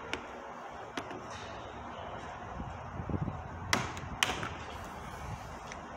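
Hammer tapping on the handles of two screwdrivers levered against the ends of a snap ring on a Toyota C60 transmission shaft, driving the ring partway off. A few separate sharp taps, the two loudest about half a second apart in the second half.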